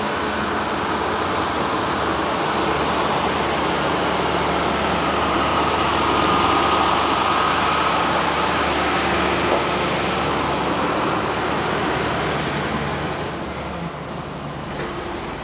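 Steady rushing noise that swells a little in the middle and eases off near the end.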